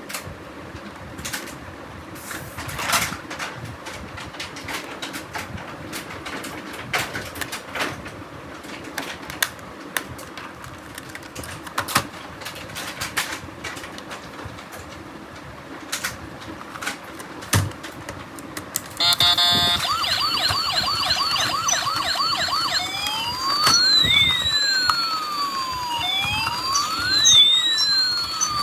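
Scattered small clicks and taps of handling a toy, then, about two-thirds of the way in, a toy police car's electronic siren switches on: a fast warble followed by rising and falling wails. The siren sounding shows the toy's sound circuit working again after its battery replacement.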